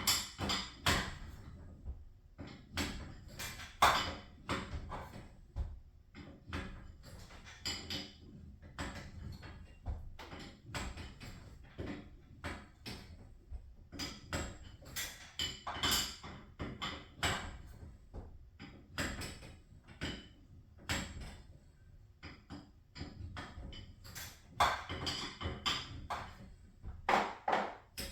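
Irregular knocks, clanks and taps of tools and metal hardware being handled during garage door torsion spring work, some ringing briefly.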